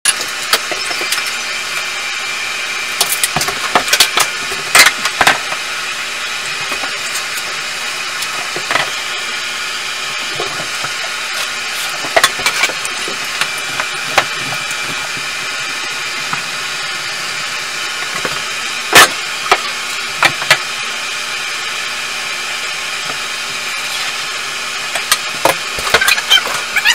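A steady mechanical hum with a faint high whine throughout, under scattered sharp knocks and clanks of hand work on a bathtub surround and shower fittings being taken apart. The loudest knock comes about two-thirds of the way through.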